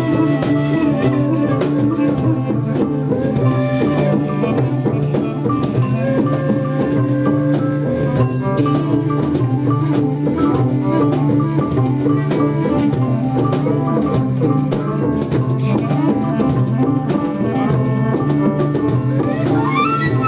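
Live jazz ensemble playing: a vibraphone struck with soft felt mallets over drums and percussion, with a violin in the mix.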